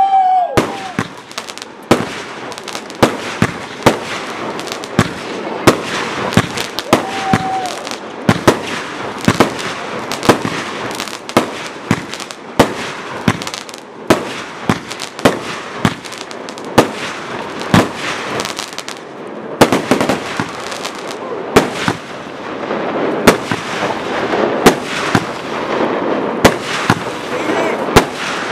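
Aerial fireworks shells bursting overhead, a steady run of sharp bangs at about one or two a second. A short whistling tone comes right at the start and another about seven seconds in.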